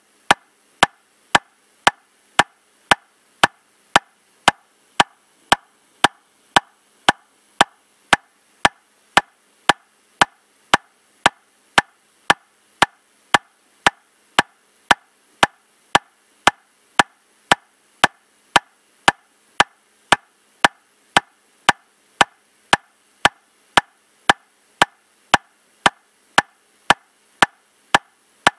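Metronome clicking steadily at 115 beats per minute, just under two sharp, even clicks a second.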